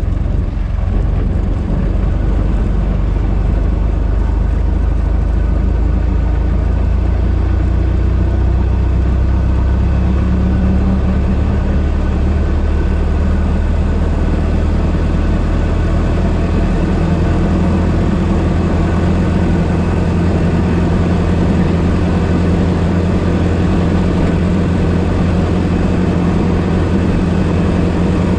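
1926 Ford Model T's four-cylinder engine running steadily as the car is driven, with small changes in engine speed.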